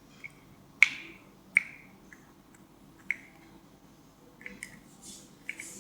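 A mixing utensil clinking against a bowl while stirring clear glue for slime: about six sharp clicks with a short ring, irregularly spaced, the loudest about a second in.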